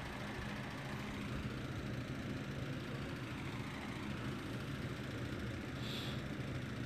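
Steady low mechanical hum in the background, with no speech.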